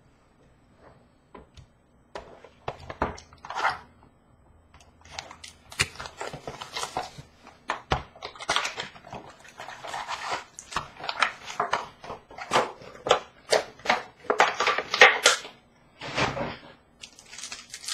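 Hockey card pack wrappers crinkling and tearing as packs are ripped open, with the clicks and rustles of cards and a cardboard box being handled. It is nearly quiet for the first two seconds, then comes a long irregular run of crinkles and sharp clicks.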